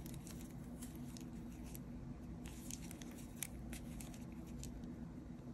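Faint, scattered soft ticks and rustles of a metal crochet hook catching and pulling yarn through stitches while single crochet is worked, over a low steady hum.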